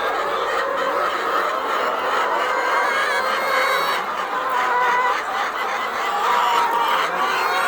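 Many caged laying hens clucking and calling all at once in a dense, steady chorus.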